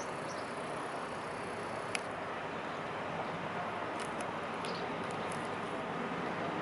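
Steady outdoor ambience: an even rushing noise with a few sharp clicks and faint, short high chirps.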